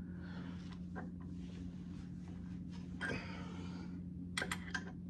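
Adjustable wrench working the forcing nut of a seal-installer tool, driving a new inner axle seal into a Jeep TJ front axle housing: soft rubbing sounds and a few light metal clicks near the end as the wrench is reset on the nut, over a steady low hum.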